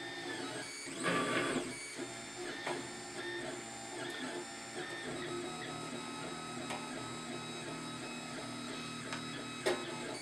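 Monoprice Select Mini 3D printer printing its first layer: stepper motors whining in shifting tones as the print head moves, over the steady hum of the extruder fan. There is a brief louder rasp about a second in and a sharp click near the end.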